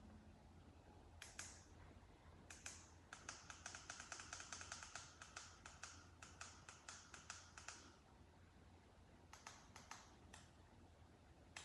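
Faint small clicks, like buttons being pressed: a few scattered ones, then a quick run of about seven a second for several seconds, then a few more, over a faint steady low hum.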